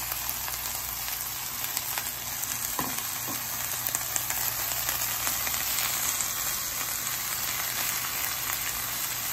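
Broccoli rabe and arugula with onion and peppers sizzling steadily in hot oil in a frying pan, with a spoon stirring them near the end.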